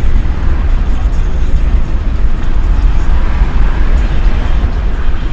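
Car driving on the road: a loud, steady low rumble of engine, road and wind noise.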